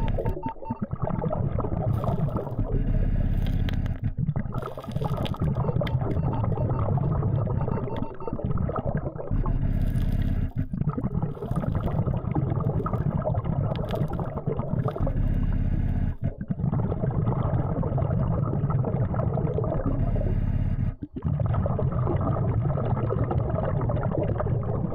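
Underwater noise of a diver on a BLU3 Nemo surface-supplied dive system: a steady low hum with bubbling and gurgling that swells every few seconds.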